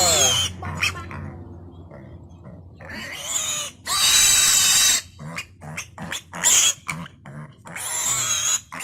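Piglets squealing in several loud, shrill outbursts, the longest about a second long around the middle, with quieter grunting in between, as they are caught and held for a vaccine injection.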